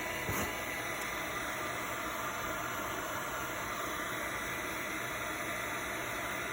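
Electric heat gun running steadily, a constant hiss of blown hot air as it heats solder on a circuit board. A brief click about half a second in.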